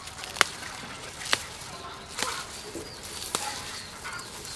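Lemongrass stalks snapping as they are harvested by hand: four sharp snaps about a second apart.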